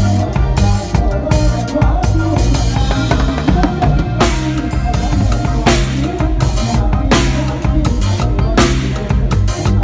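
Band music with a drum kit and bass guitar playing a driving beat. From about four seconds in, cymbal crashes come roughly every second and a half.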